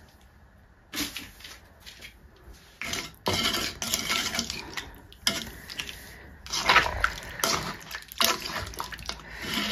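Spoon stirring thick chicken curry in a metal pot: wet stirring and scraping against the pot in irregular strokes, starting about a second in.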